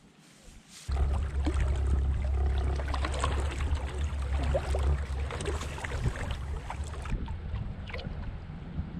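A boat's motor running under way, a steady low rumble with water and wind noise over it, coming in suddenly about a second in and easing somewhat a few seconds later.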